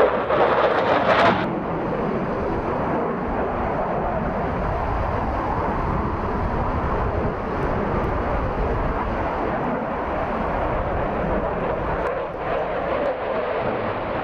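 Jet noise from a Dassault Rafale fighter's twin turbofan engines as it flies past: louder and harsher for the first second or so, then a steady rush of engine noise.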